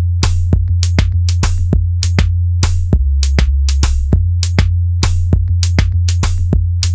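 Electronic background music: a steady deep bass under sharp drum-machine hits in a busy beat.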